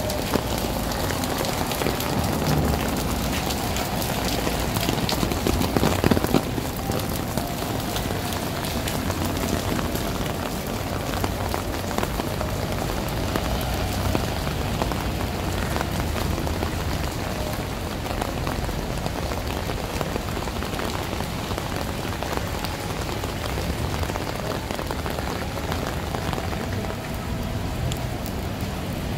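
Steady rain falling on pavement and street, with a dense patter of fine raindrop ticks. The rain rises briefly about six seconds in.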